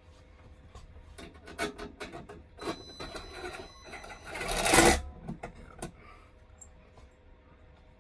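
Quick clicks, scrapes and rubbing of hand work on hard parts, rising to a loud rasping swell about four and a half seconds in and dying away by six seconds, over a faint steady hum.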